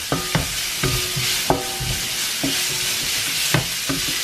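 Sliced onions sizzling in hot oil in a frying pan while a wooden spoon stirs them, knocking and scraping against the pan about eight times at an uneven pace. Some knocks leave a brief ringing tone from the pan.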